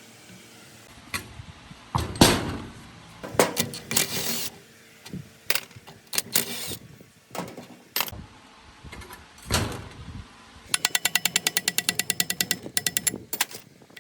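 Workshop tool work on metal parts: a series of separate knocks, clanks and scrapes, followed near the end by a rapid run of clicks, about ten a second, lasting roughly three seconds.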